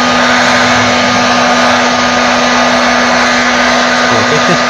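Handheld heat gun blowing steadily, an even rush of air with a constant motor hum and whine, heating plastic pieces to soften them for fusing.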